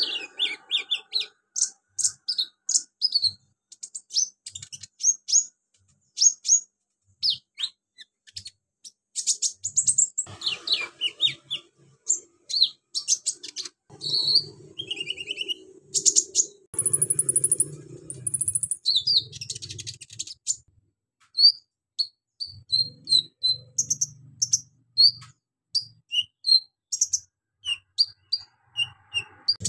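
Caged male kolibri ninja (Van Hasselt's sunbird) singing a busy song of many short, high chirps, whistles and trills, with a buzzy rapid trill about halfway through; its song is kept for the mimicked calls of other birds and insects that it carries.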